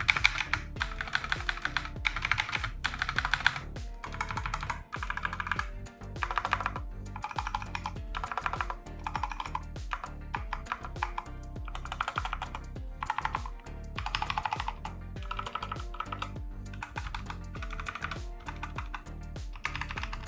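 Typing on a Defender Hawk GK-418 mechanical keyboard with Outemu switches: rapid key clicks in bursts of about a second with short pauses, over quiet background music.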